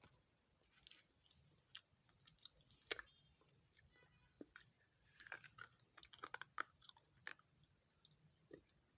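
Someone biting and chewing dry multani mitti (fuller's earth clay): faint, sharp crunches and crackles at irregular intervals, coming thick and fast in a cluster around the middle.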